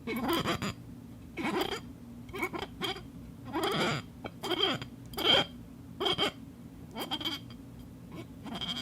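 Glass squeaking under short repeated rubbing strokes, one or two a second, many of them sliding down in pitch, with a thin high ringing in each stroke.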